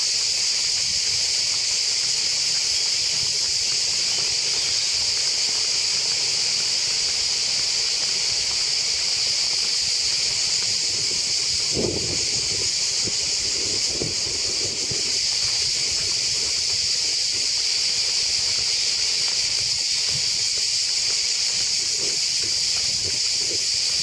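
Cicadas singing in a loud, steady chorus that never breaks. A few soft scuffs come through about halfway through.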